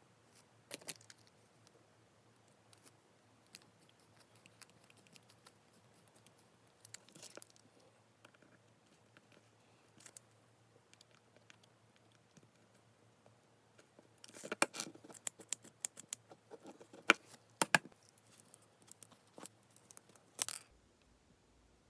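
Small handling sounds: scattered clicks, taps and rustles. A denser run of sharp clicks comes about two-thirds of the way through.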